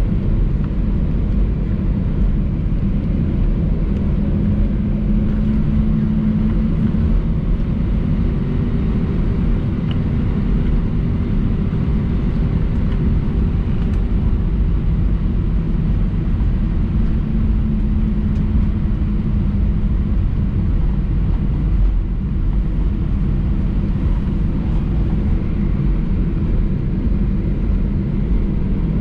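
Airbus A319 cabin noise while taxiing after landing: a steady low rumble of the engines and airframe, with a faint hum that swells for a few seconds twice.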